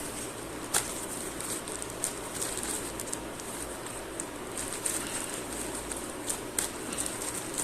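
Packaging being handled: crinkling and rustling with scattered sharp clicks, two louder ones about a second in and near the end.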